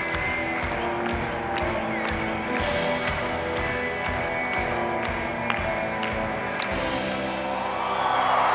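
Live rock band playing through a concert PA with a steady drum beat; the drums stop a little before the end and crowd cheering swells up.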